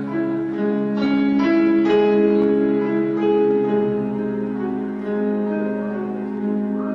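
Instrumental music for the routine: a slow melody of held notes moving from pitch to pitch.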